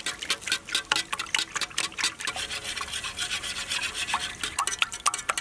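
Wire whisk beating a large batch of raw eggs in a big metal pot: a rapid, irregular run of clicks as the wires strike the pot, with a wet swishing between them.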